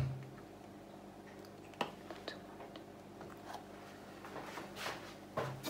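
Faint handling noise: a few scattered light clicks and a soft rustle as a canvas panel loaded with steel hex nuts and wet paint is set down on a stand and picked up again, with a brief low murmur near the end.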